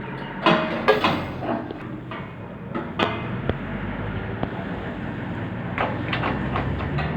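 Irregular hammer blows and clanks of metal in a blacksmith's workshop, a dozen or so sharp knocks, some ringing briefly, over a low steady rumble.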